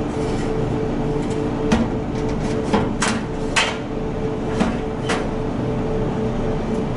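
A steady idling engine hum, broken by about half a dozen sharp knocks and clacks spread over a few seconds, as timber is unloaded from a truck.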